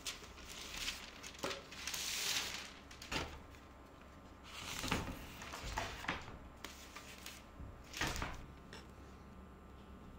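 Soft rustling and light knocks of things being handled, in a few short bursts with small clicks between them.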